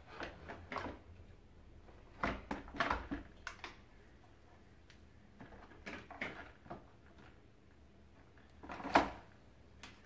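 Scattered plastic clicks and knocks as the cable reel and plastic housing of a Philips vacuum cleaner are handled and fitted together. The loudest knock comes near the end.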